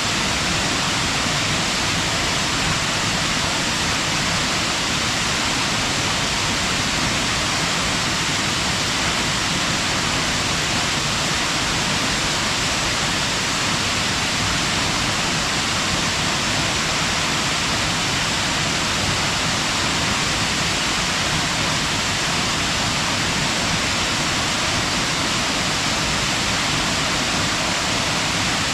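Waterfall pouring into a gorge: a steady, even rush of falling water with no breaks.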